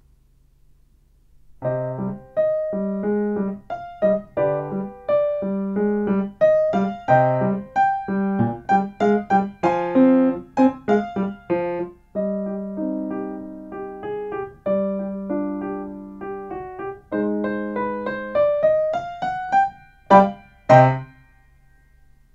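Grand piano playing a short piece, starting about a second and a half in. A rising run near the end leads into two loud closing chords.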